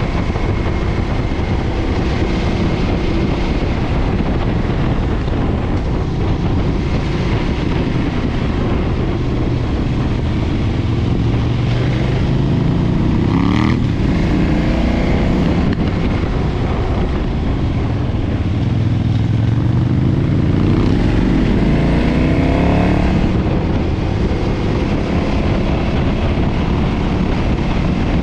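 KTM 990 V-twin engine with its stock exhaust running under way, its revs rising twice (about halfway through and again about two-thirds in) and dropping back after each, over a steady rush of riding noise.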